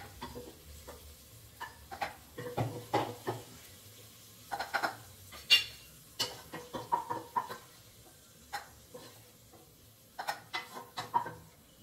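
A utensil stirring food in a cooking pan, clinking and scraping against the metal in irregular knocks, over a light sizzle of frying.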